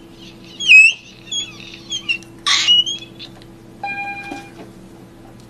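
Rapid high-pitched chirps and squeaks with sliding pitch, broken by two short hissing bursts, over a steady low hum; a steady beep sounds briefly near the end.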